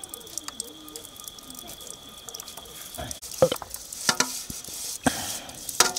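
Aluminium plates and bowls clinking against each other and against a black iron wok as they are lifted out of the stack for washing. There are a few sharp metal clanks in the second half, after a quieter start.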